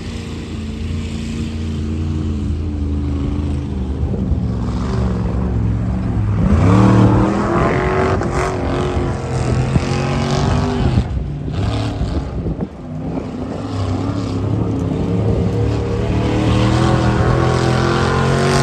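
Mega truck engine running, revving up hard about six and a half seconds in, easing off around eleven seconds, then climbing again near the end.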